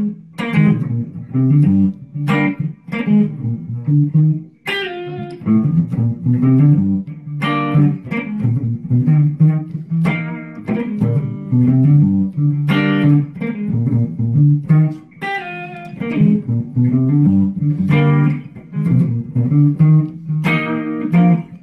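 Semi-hollow electric guitar and electric bass playing a funk groove together, the guitar picking a repeating lick over the bass line.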